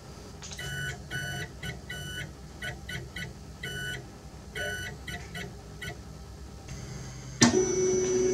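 Electronic beeper sounding a rhythmic run of short beeps at a few different pitches, like a simple tune. About seven and a half seconds in a louder held tone starts suddenly.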